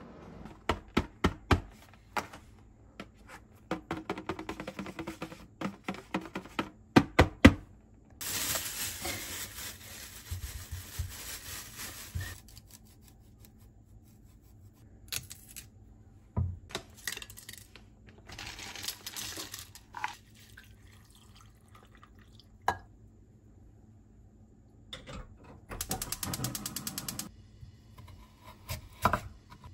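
Kitchen work sounds: scattered knocks and clicks of utensils and dishes, with a few seconds of running water about eight seconds in and a shorter stretch near the end.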